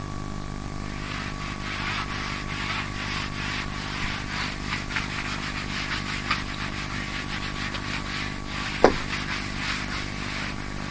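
Felt whiteboard eraser scrubbing marker drawings off a whiteboard in repeated back-and-forth strokes, with one short falling squeak near the end.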